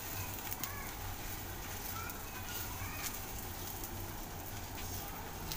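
Faint, steady sizzling of besan chilla batter on a hot iron tawa as a ladle spreads it round, with a few faint short chirps in the background.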